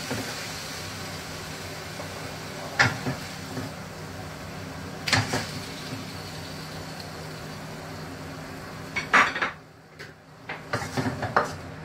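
Wooden spatula knocking and scraping against a wok as stir-fried cabbage is scooped out onto a plate, over a steady hiss from the hot pan. A few separate knocks are followed near the end by a quick cluster of clanks, and the hiss then drops away.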